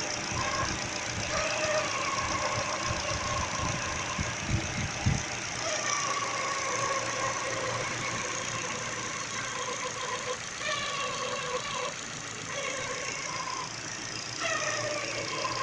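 Car engine idling with the electric radiator cooling fan running, and a high whine that comes and goes: the 'singing' of a new Contitech camshaft timing belt, which the owner blames for the noise.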